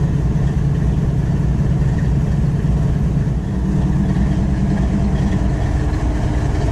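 Diesel-electric locomotive engine idling, a steady low hum heard up close alongside the hood.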